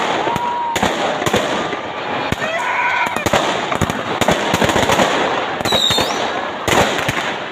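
Consumer fireworks going off overhead: a dense, rapid string of bangs and crackles, with a couple of brief whistling tones.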